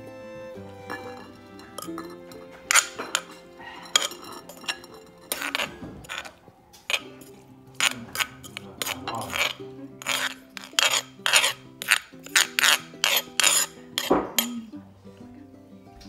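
Metal spoon scraping and knocking against a clay mortar as mango salad is scooped out onto a ceramic plate: a long run of sharp scrapes and clinks, coming quickly and evenly in the second half and stopping shortly before the end.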